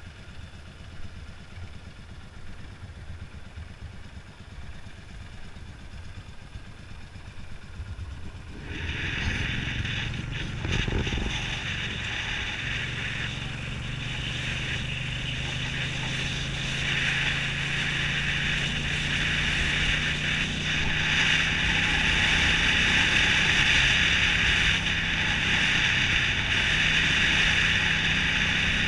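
Honda CX500 V-twin engine heard from the rider's helmet camera while riding, with wind rushing over the microphone. The first stretch is quieter; about nine seconds in the sound gets louder, and the engine note rises slowly as the bike gathers speed.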